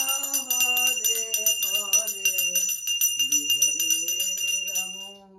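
Puja hand bell (ghanti) rung rapidly and continuously for the arti, a steady high ringing of many strikes a second, with a voice singing long held notes over it. The bell stops about five seconds in and the singing fades out with it.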